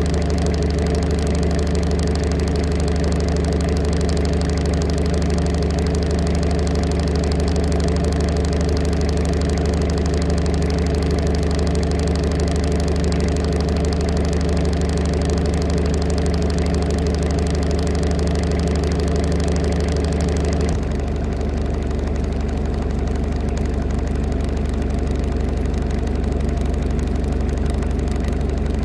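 Vehicle engine idling steadily, its tone changing abruptly about twenty seconds in.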